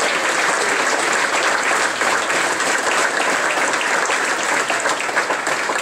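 Audience applauding, many people clapping steadily at an even level throughout.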